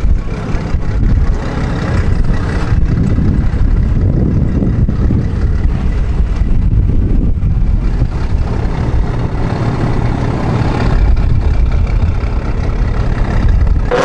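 Several cars idling in a queue, a steady low engine rumble with no revving.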